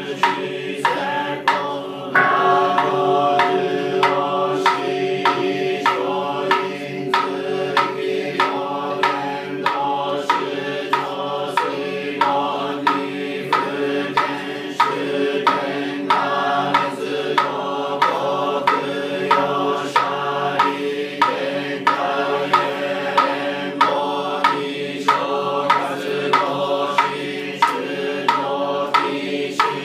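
Nichiren Buddhist chanting by a group of voices in unison, kept to a steady struck beat of nearly two strokes a second.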